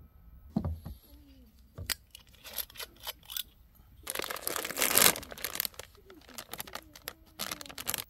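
Handling sounds of a soju bottle being opened: sharp clicks and ticks as the metal screw cap is twisted off, then a louder crinkling, tearing rustle about four seconds in, followed by a few more clicks.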